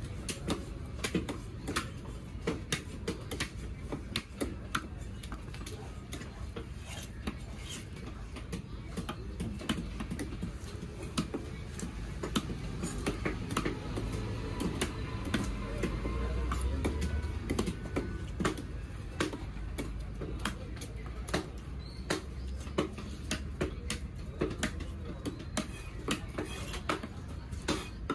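Heavy fish-cutting knife chopping and slicing a large seabass on a wooden log block: repeated sharp knocks of the blade striking the wood, irregular, about one or two a second, over a steady low rumble.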